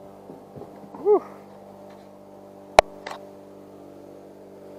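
Over a steady low hum, a short rising-and-falling grunt about a second in, then a single sharp knock a little before three seconds, with a fainter one just after, as a largemouth bass is swung aboard an aluminium boat by hand.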